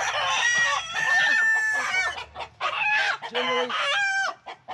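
Chickens squawking and clucking loudly in overlapping calls, with a rooster crowing among them.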